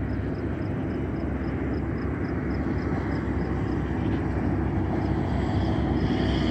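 Steady low engine drone from a distant motor, swelling slightly toward the end. A faint high ticking repeats about four times a second over the first few seconds.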